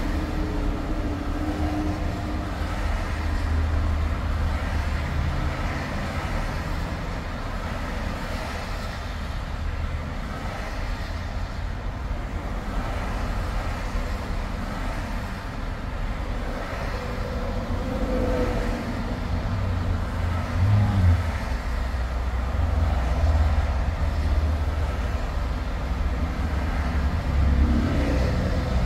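Steady road noise of highway driving: a heavy low rumble of tyres and engine with a hiss above it, getting a little louder about two-thirds through and again near the end.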